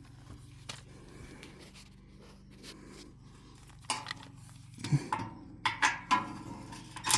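Metal clinking and clanking, a quick cluster of sharp knocks with a brief ring, as screws and small steel parts are handled while fastening guards back onto a hay baler's pickup.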